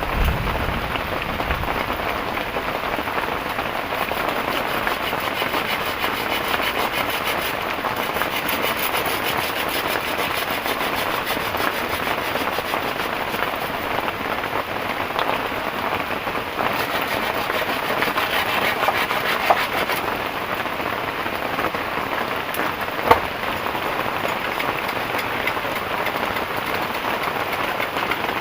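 Heavy tropical rain pouring steadily, an even rushing hiss of rain on surfaces. Two sharp knocks stand out, about two thirds of the way through and again a few seconds later.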